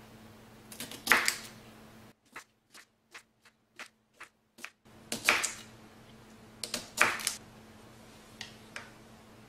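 Crinkle cutter chopping down through a carrot-stuffed cucumber onto a bamboo cutting board: a series of irregular crunchy cuts and knocks of the blade on the wood, with a run of quicker, lighter clicks in the middle.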